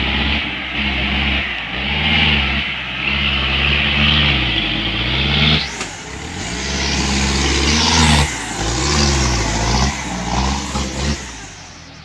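Modified off-road 4x4's engine revving hard, rising and falling in repeated bursts as its big lugged tyres spin and churn through deep mud. The engine drops away about eleven seconds in as the vehicle pulls clear.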